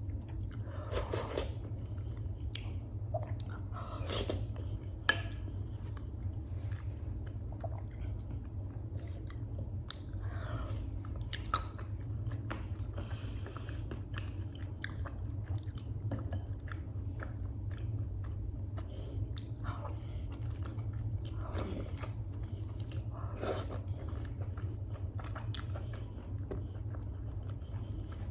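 Close-miked chewing and biting of freekeh with beef: irregular wet mouth clicks and a few sharper bites, over a steady low hum.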